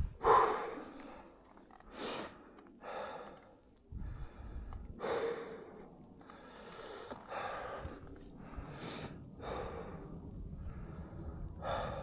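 A motorcycle rider breathing hard, with heavy puffing exhales and gasps every second or two: out of breath from exertion after dropping his heavy adventure bike.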